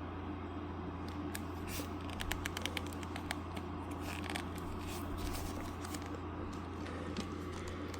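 Small clicks and scrapes of a plastic action figure's leg joints being bent and handled, with a quick run of clicks about two to three seconds in, over a steady low hum.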